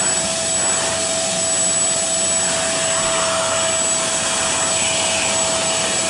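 Portable spot carpet cleaner's suction motor running steadily with a constant whine as its hose nozzle sucks water up from the carpet.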